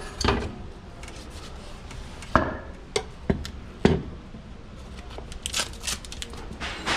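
Irregular knocks and clunks with some rubbing as a car's front suspension strut assembly and its parts are handled and set in place, about seven sharp knocks in all.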